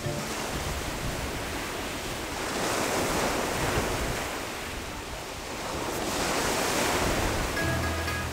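Ocean surf: waves washing and breaking on a rocky shore, swelling up twice, with some wind. Music comes back in near the end.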